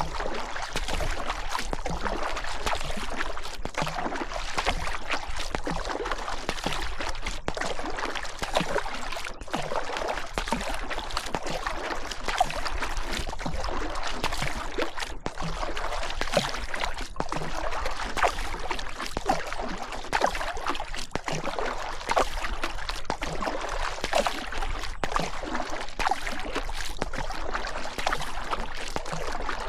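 River water rushing and splashing in a steady, dense wash full of fine spattering crackle.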